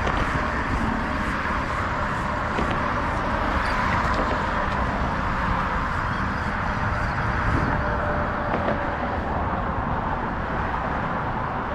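Steady road traffic noise from cars crossing the bridge, an even rushing sound that holds at one level throughout.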